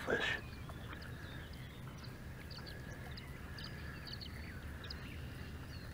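Birds chirping faintly over a low, steady rumble of wind on the microphone, with a brief louder sound right at the start.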